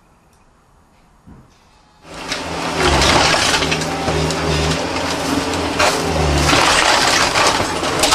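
Quiet for about two seconds, then a loud, dense din as a skid-steer loader's engine works under load while its bucket smashes through wooden house framing, with wood cracking, splintering and crunching.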